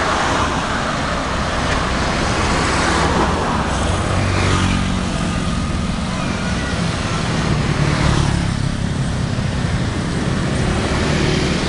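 Street traffic of motorbikes and cars, a steady road noise with engines passing that swells about four seconds in and again near eight seconds.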